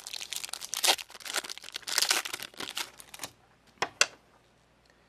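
A trading card booster pack wrapper crinkling and tearing as it is opened, stopping about three seconds in, followed by two sharp clicks.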